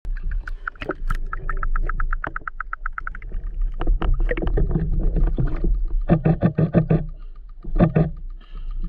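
Water sloshing and splashing against a half-submerged action camera's housing as it bobs at the surface, in irregular clusters of sharp strokes, with a rapid run of even ticks, about five a second, over the first three seconds.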